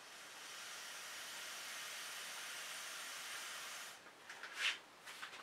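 Steady hiss of blown air on the wet acrylic paint for about four seconds, then it stops and a few light clicks follow.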